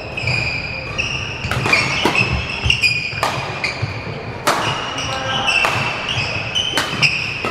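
Badminton rally: a string of sharp racket hits on the shuttlecock, a half second to a second apart, with sneakers squeaking and feet thudding on the wooden court floor.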